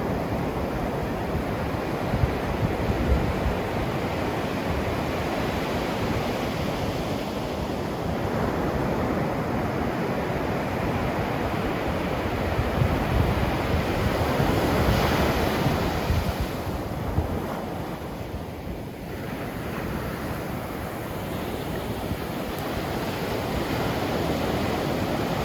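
Ocean waves breaking and washing ashore, a continuous rush of surf that swells to its loudest about fifteen seconds in, eases off a few seconds later and builds again near the end.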